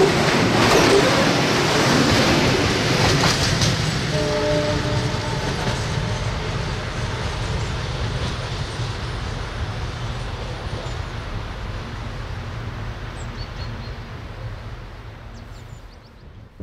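Heavy freight train of open-top wagons rolling away over the rails, its rumble and wheel clatter fading steadily. About four seconds in, a locomotive horn sounds once in the distance for about a second.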